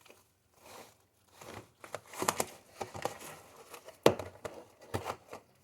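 Slime being handled: a string of wet, sticky crackles and pops as it is stretched and pulled apart, loudest in the middle stretch.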